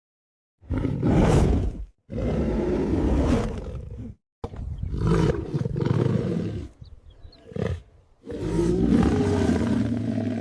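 A large wild animal roaring: about four long, deep roars with short pauses between them, starting about half a second in.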